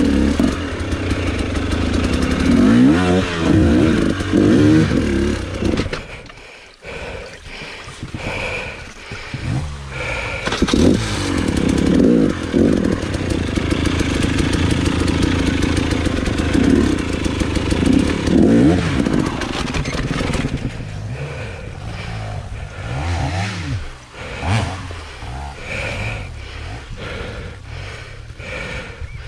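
Dirt bike engine of a 300 cc enduro motorcycle revving in repeated short bursts as it fights over rocks. There is a brief drop in the engine sound about six seconds in, then more bursts of revving.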